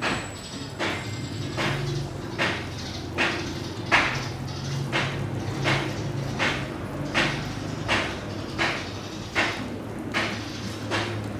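Minced meat mixture being pressed and patted between wet palms into a ball, a soft smack roughly every three-quarters of a second, over a low steady hum.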